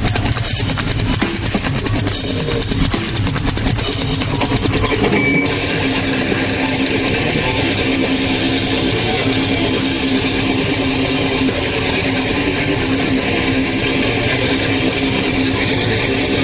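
Heavy metal band playing live with electric guitars and a drum kit: fast, dense drumming under the guitars for the first five seconds or so, then the music switches to steadier held notes.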